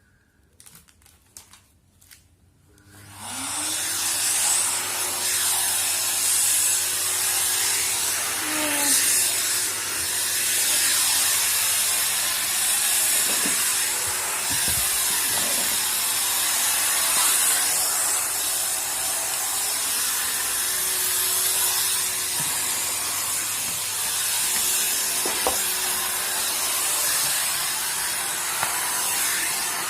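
Vacuum cleaner switched on about three seconds in: the motor spins up with a rising whine, then runs steadily with a loud airy hiss and a low hum.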